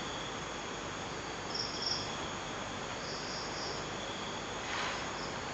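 An insect chirping in short high trills, about three in a few seconds, over a steady background hiss.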